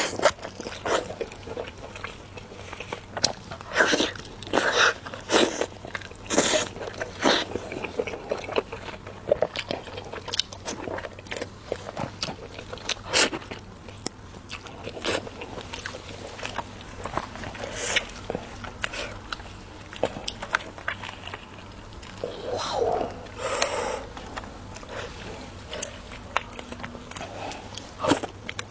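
A person biting and chewing kiln-roasted chicken close to the microphone: a run of irregular sharp bites and chewing clicks, with louder clusters now and then.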